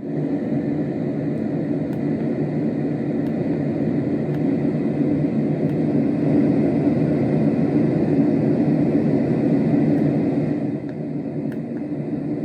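LectroFan Evo white noise machine playing a deep, rumbly brown noise, steady throughout, dropping a step in loudness near the end.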